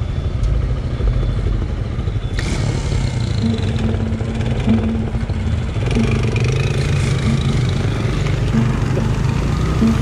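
Motor vehicle traffic: a steady low engine rumble with road noise, growing hissier about two seconds in.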